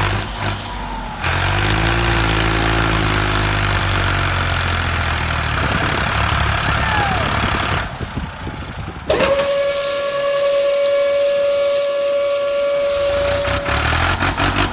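A motor running under a loud hiss. After a brief dip about eight seconds in, a steady high whistling tone takes over, still with a hiss beneath it.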